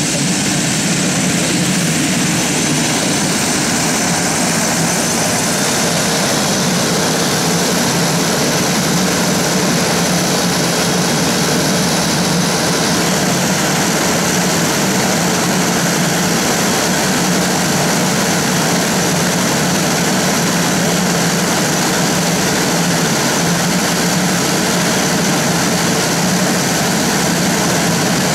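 Pilatus PC-21's Pratt & Whitney Canada PT6A turboprop and five-blade propeller running steadily at low power on the ground, as when taxiing.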